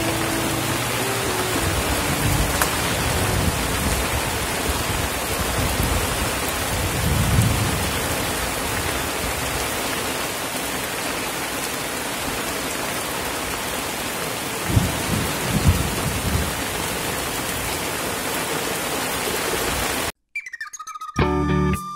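Steady rain falling on open water, an even hiss, with low rumbles of thunder around seven and fifteen seconds in. The rain cuts off abruptly near the end.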